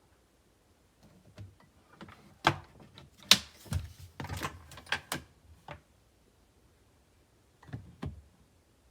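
Irregular clatter of sharp clicks and knocks, like hard plastic parts being handled and fitted, with a busy run of them for several seconds and two more near the end.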